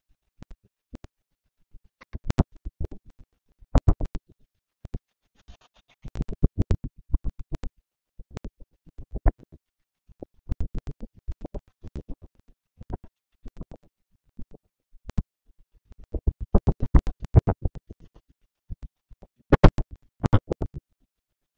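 Rapid, choppy clicks and crackles in uneven bursts with dead gaps between: the audio of a severe thunderstorm with extreme wind and heavy rain, recorded by a security camera and sped up into a time-lapse.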